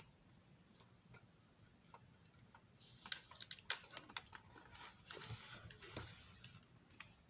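Light, irregular clicks and rustling of small parts and tools being handled at a workbench, starting about three seconds in after a near-silent stretch.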